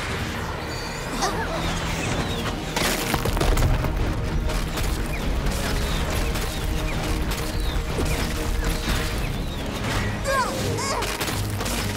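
Animated battle sound effects: a run of crashes and impacts with sweeping whoosh effects, over background music.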